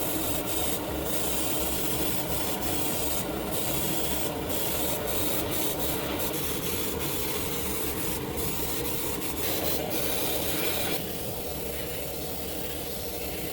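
Steady abrasive rubbing, like hand sanding or scrubbing a small die-cast model car body, with short strokes throughout. It becomes a little quieter about eleven seconds in.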